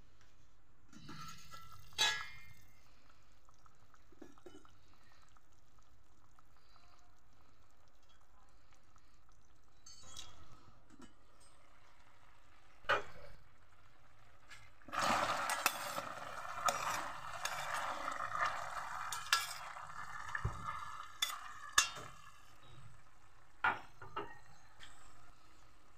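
Metal clinks against a stainless steel cooking pot: one about two seconds in and another near thirteen seconds, then several seconds of stirring with scrapes and clinks over the simmering pork, and a few last clinks near the end.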